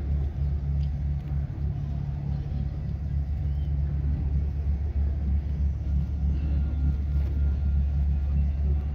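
Low, steady rumble of an Archer-class patrol boat's twin diesel engines as it cruises past at constant speed.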